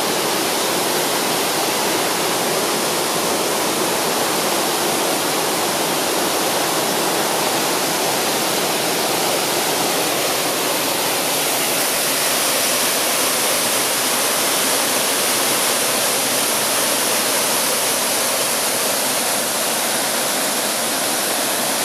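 A fast rocky stream cascading over boulders: a steady, even rush of white water.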